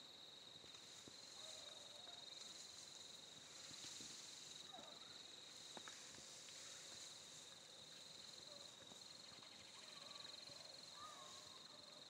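Faint early-morning insect chorus: a steady, high, slightly pulsing trill, with a few faint short chirps over it and one faint click about halfway through.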